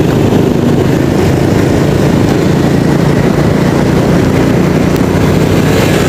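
Steady, loud ride noise from a Honda motor scooter moving along a city road: wind rushing over the microphone, mixed with engine and road noise. The noise stays even throughout.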